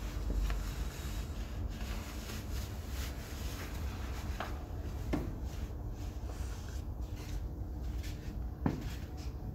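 High-heeled sandals tapping a few times on a tiled floor as the wearer shifts and steps, the clearest taps about five seconds in and near the end, over a steady low hum.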